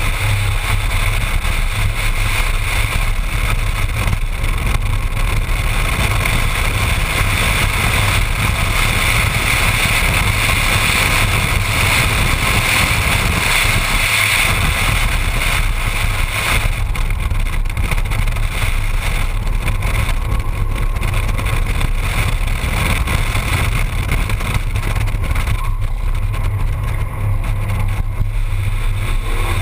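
Ford Mustang running at a steady pace on track, its engine drone mixed with wind rushing over a microphone mounted on the outside of the car. The higher rushing eases a little about halfway through.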